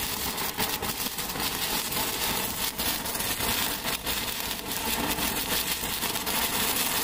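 Hand-held Standard Fireworks stick firework burning, giving a steady hiss of spraying sparks with dense crackling throughout.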